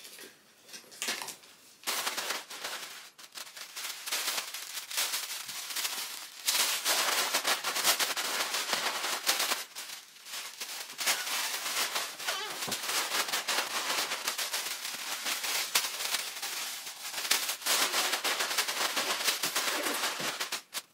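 Pink and white tissue paper rustling and crinkling as the sheets are handled and tucked into a woven basket: a dense run of crackles that starts about two seconds in.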